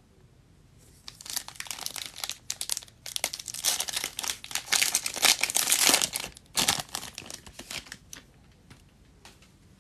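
Foil wrapper of a Panini Prizm football card pack being torn open and crinkled by hand, the crackling loudest in the middle. It tapers off near the end into a few light rustles as the cards are slid out.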